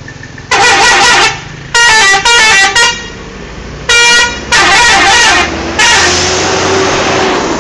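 Bus "telolet" musical horn playing its multi-note tune in about six loud bursts, the pitch changing from note to note. The last burst runs longer and trails off into a noisy wash.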